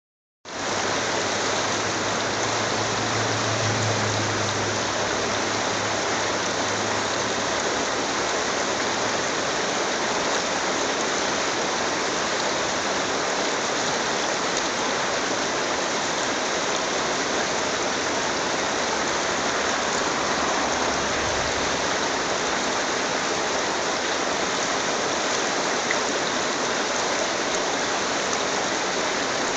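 Shallow mountain stream rushing steadily over a stony bed, water breaking over cobbles in small riffles; it starts about half a second in.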